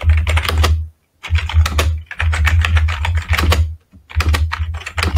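Computer keyboard typing in quick runs of keystrokes broken by short pauses.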